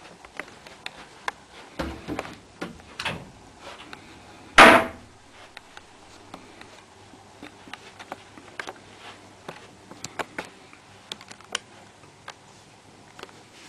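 Scattered small clicks and knocks in a small room, with a few louder knocks about two to three seconds in and one loud knock with a short ring a little before the fifth second.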